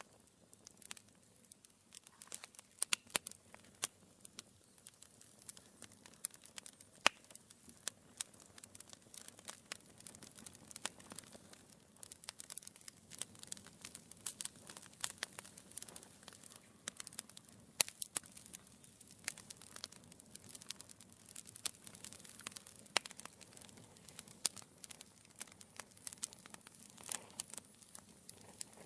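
Wood fire burning in a fireplace: logs crackling and popping in irregular sharp snaps over a low hiss of flame.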